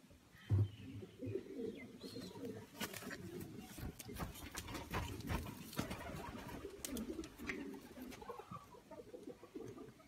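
Pouter pigeons cooing low and repeatedly, with scattered faint clicks of movement among them.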